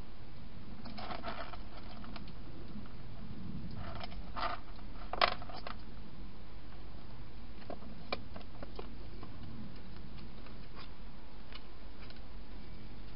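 A wild hedgehog rustling and crackling through dry grass and leaves, with scattered soft clicks and one sharper click about five seconds in, over a steady low hum and hiss.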